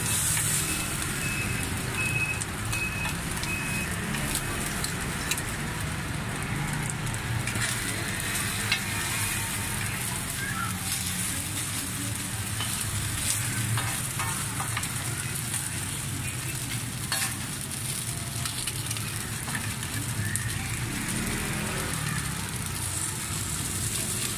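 Food sizzling in hot oil on a pan, stirred with a metal spatula that gives occasional sharp clicks and scrapes, over a low hum of street traffic.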